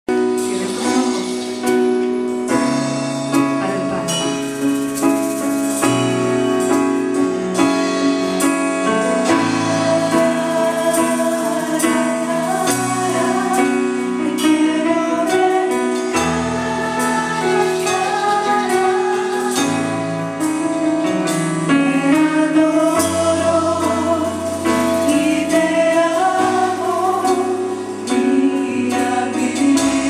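Live Christian worship band playing: several voices singing into microphones over sustained keyboard chords, with drums and congas keeping a steady beat.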